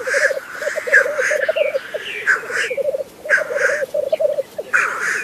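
Male black grouse displaying on a lek: a continuous bubbling, cooing song, cut by short hissing calls about once a second.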